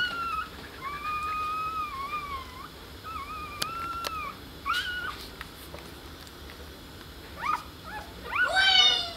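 Five-day-old Kooikerhondje puppies whining and squeaking while nursing: a run of high, thin whines, several held for a second or more. Near the end comes a loud cluster of short rising squeals.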